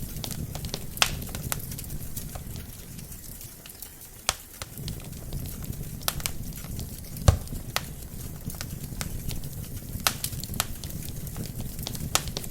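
Wood fire burning in a fireplace: a steady low rumble of flames with irregular sharp crackles and pops from the burning logs, the loudest pops about a second in, near the middle and past the middle.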